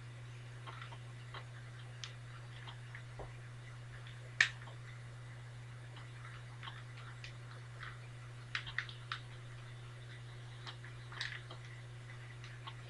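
Rubik's Cube layers being twisted by hand: irregular soft plastic clicks, with one sharper snap about four seconds in and a quick run of clicks near nine seconds, over a steady low hum.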